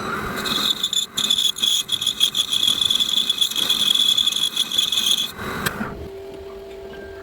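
A power tool cutting metal with a loud, high-pitched squeal for about five seconds, then stopping. A steady hum carries on after it.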